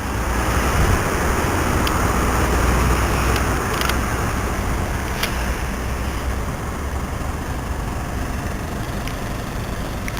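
Road traffic: a continuous rumble of cars driving past, a little louder over the first few seconds as a vehicle goes by, then steady.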